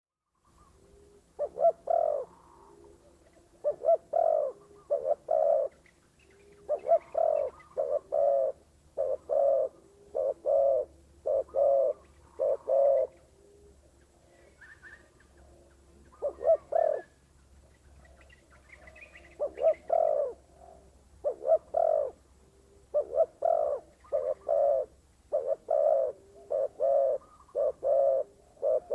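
Spotted dove (terkukur) cooing: short phrases of a few low coo notes, repeated again and again with brief gaps and one longer pause in the middle.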